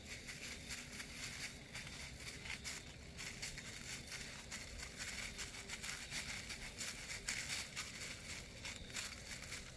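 Dry fallen leaves rustling and crunching underfoot, a dense, irregular run of small crackles.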